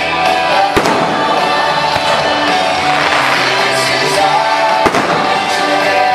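Music with singing, over which aerial fireworks burst with sharp bangs, the clearest about a second in and again near five seconds.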